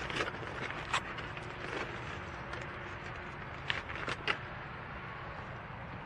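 Outdoor rail-yard ambience: a steady low rumble with a few short sharp clicks or knocks, one about a second in and three in quick succession around four seconds in.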